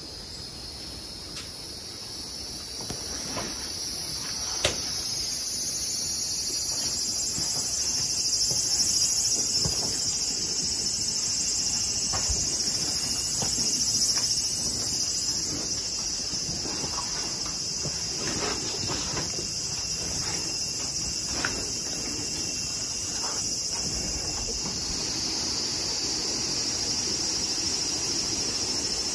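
Insects shrilling in a steady, high-pitched chorus that swells over the first few seconds, with a few faint clicks and knocks scattered through it.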